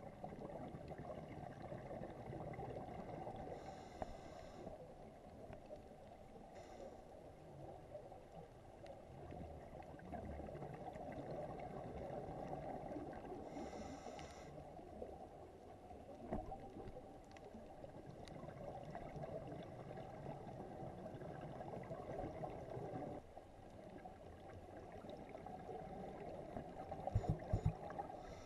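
Muffled underwater rushing and bubbling picked up by a camera in an underwater housing, with short hisses from a scuba regulator about four and fourteen seconds in. There are a few low knocks near the end.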